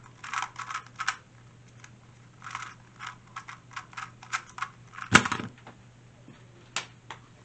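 2x2 speedcube being turned fast in the hands: plastic layers clicking in quick, irregular flurries. About five seconds in there is one loud thump.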